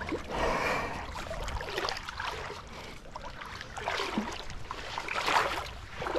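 Someone wading through shallow creek water: irregular splashes and sloshes, several in a row.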